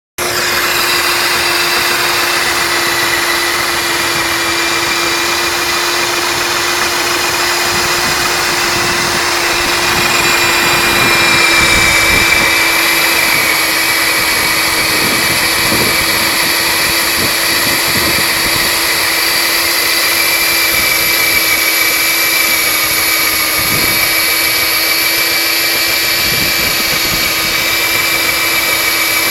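Diamond core drill motor running steadily with a constant whine, its bit boring out a chimney flue to a wider diameter; slightly louder about twelve seconds in.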